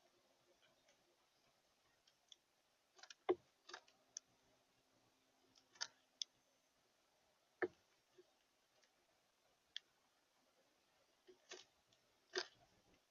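Irregular sharp clicks and taps, about a dozen of them, spaced one to two seconds apart, over near silence with a faint steady hum.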